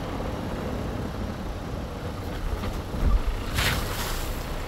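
Wind buffeting the microphone: a steady low rumble, with a thump about three seconds in and a brief hiss just after.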